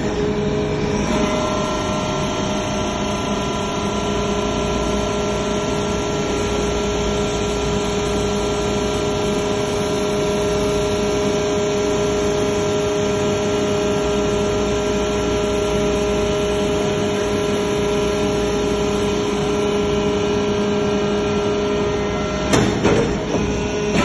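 Hydraulic metal-chip briquetting press running under load as its ram compresses metal chips: a steady hum with a constant whine. About a second and a half before the end the whine stops and a few sharp knocks follow.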